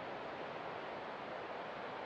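Steady, even rushing of sea water, with no separate waves or calls standing out.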